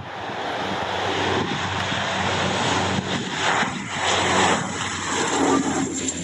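De Havilland Canada Dash 8-300 twin turboprop at takeoff power, lifting off and climbing away: a loud, steady propeller drone with a low hum over a broad rushing noise.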